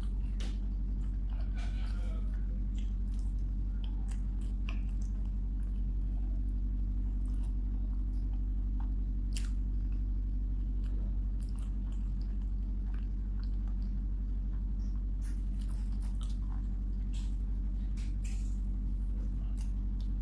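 A person chewing food with the mouth closed, heard close up: soft wet mouth sounds and scattered small crunches and clicks, more of them near the end as another bite is taken. A steady low hum runs underneath and is the loudest thing.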